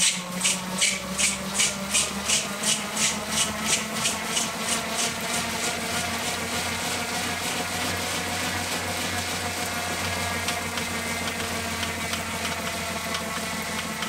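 Wahoo KICKR SNAP V2 wheel-on smart trainer under a full sprint: the rear tyre spins on the trainer's roller with a steady whine and hum, mixed with bike drivetrain noise. A hiss pulses about three times a second for the first five seconds, then evens out into a steady whir.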